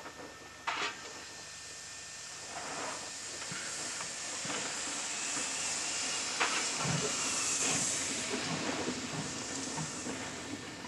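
Ty3-2 steam locomotive hissing steam as it moves off, the hiss building over a few seconds and then easing, with a few sharp metallic clanks.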